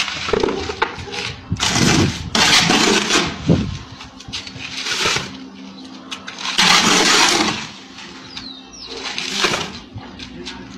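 Shovel scraping and scooping in a bucket on a building site, in rough rasping strokes every second or two, over a steady low hum.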